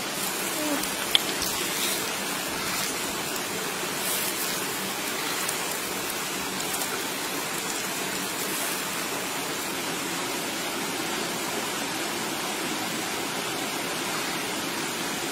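Steady rushing of a nearby stream flowing over rocks, with a few light clicks and one sharp tap about a second in.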